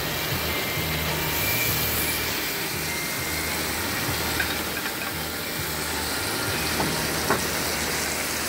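Wahoo medallions and onions sizzling in butter and oil in a large steel disc pan, with a couple of light clicks from a spatula and tongs against the pan. Background music with a bass line plays underneath.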